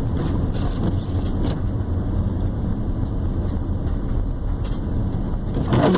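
Steady road noise inside a car cabin, tyres and engine rumbling while driving slowly over slush and snow, with a few faint clicks. A brief louder rush comes near the end.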